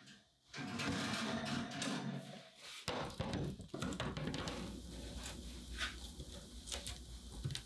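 A metal financier pan scraping along an oven's wire rack as it is pulled out. About three seconds in there is a sharp knock as the pan is turned out onto a paper-lined metal baking tray, followed by light taps and rustles as the baked financiers are handled on the tray.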